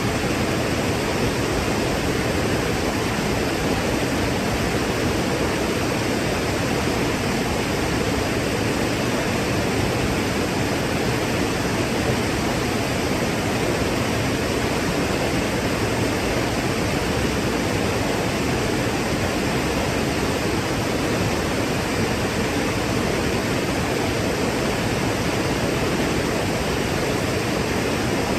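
Waterfall: falling water making a steady, even rushing noise.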